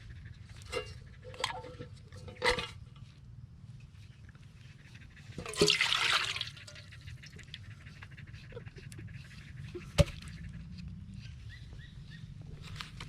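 Liquid splashing briefly into a pot for about a second near the middle, with a few short sharp knocks earlier and one sharp click later, over a low steady background hum.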